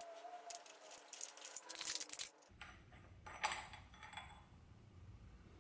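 Faint metallic clinks and rattles of hand tools on an engine's crankshaft pulley: the harmonic-balancer holding tool and ratchet being handled, then the loosened crank pulley bolt being turned out by hand. The clinks come in two clusters, one in the first two seconds and one around the middle.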